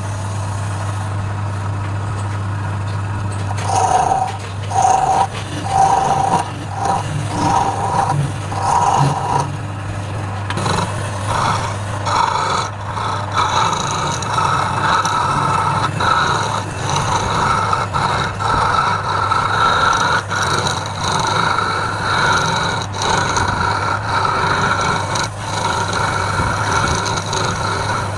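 Wood lathe running with a steady low hum while a turning tool scrapes the spinning workpiece. The cutting comes in short strokes for several seconds, then runs on more continuously as a whining scrape.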